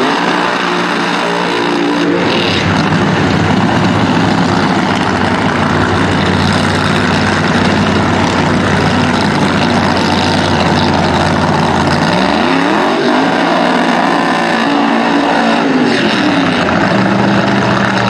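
Funny car drag-racing engines running loud at the starting line. The pitch drops right at the start, rises sharply about twelve seconds in, holds high, then falls back a few seconds later.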